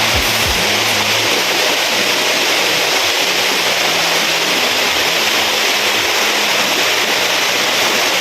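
Waterfall pouring: a loud, steady rush of falling water that does not let up.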